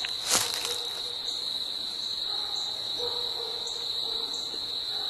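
Steady high-pitched insect trill, typical of crickets, with a second, higher trill starting and stopping above it. A single short crunch of dry leaves underfoot about half a second in.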